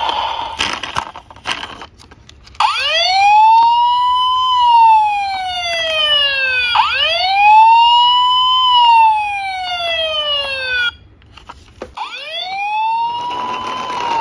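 Battery toy police truck's electronic siren wailing through its small speaker: each sweep rises quickly, then falls slowly over about four seconds. Two full sweeps, a sudden stop, and the siren starts again about a second later, after a few plastic handling clicks at the start.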